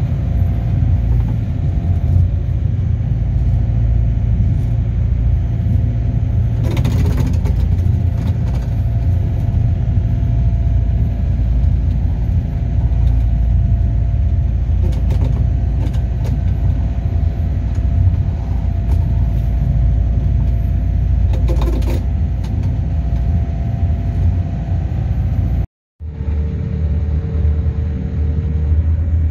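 Sea-cleaning boat's engine running steadily under way, a loud low rumble. It cuts out for an instant near the end and then carries on.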